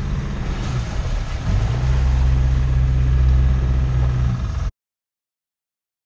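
Sailing yacht's inboard engine running under way, a steady low hum that grows louder about a second and a half in. The sound cuts off suddenly near the end.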